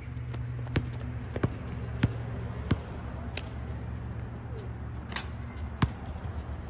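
A basketball dribbled on an outdoor hard court: sharp bounces about every two-thirds of a second, then, after a jump shot, a few scattered bounces and a longer ringing hit just after five seconds in. A steady low hum runs underneath.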